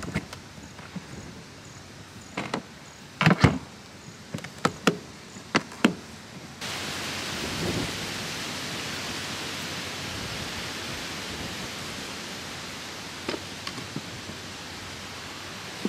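Sharp clicks and knocks of a hard plastic cooler's latches being worked and its lid handled, a dozen or so in the first six seconds, the loudest around three seconds in. Then a steady hiss of wind on the microphone starts suddenly, with a few faint knocks of split firewood being picked up near the end.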